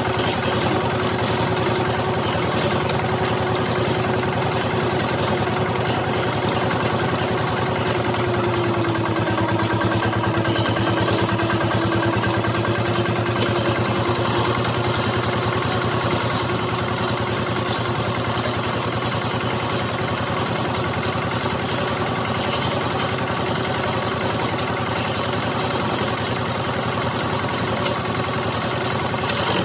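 Wood lathe running steadily with a constant machine drone; its pitch sags slightly about nine seconds in.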